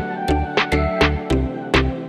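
Background music with a steady beat: a regular kick drum and sharp percussion strikes about two to three times a second under pitched melodic tones.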